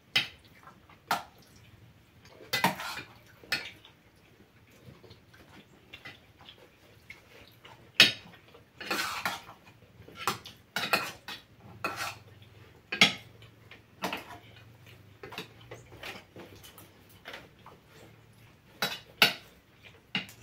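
Cutlery clinking and scraping on plates as people eat, in irregular sharp clicks with a few short scrapes; the loudest knocks come about eight and thirteen seconds in.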